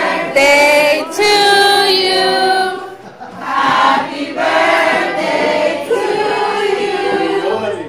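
A group of people singing together in long held notes, breaking off briefly about three seconds in.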